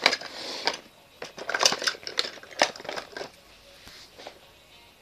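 Quick clicks and rustling as toy blocks are handled, lasting about three seconds, then quieter.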